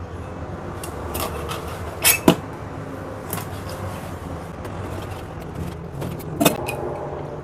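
Chinese cleaver chopping a split salted fish into pieces on a cutting board: a few sharp knocks, the loudest a pair about two seconds in and another near the end, over a steady low hum.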